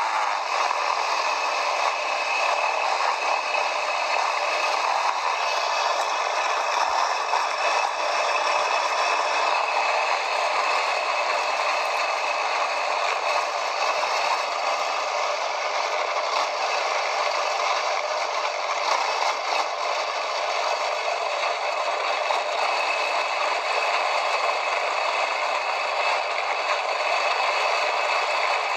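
Steady rattling, rushing noise from a quad-bike ride, with no clear engine note standing out.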